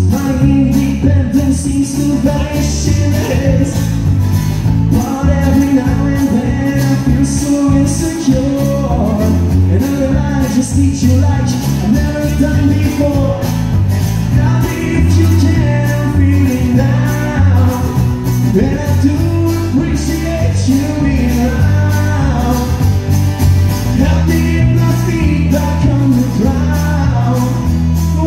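Live band playing a song through a PA: a man singing over strummed acoustic guitar, electric bass and drums, with a steady beat and a moving bass line.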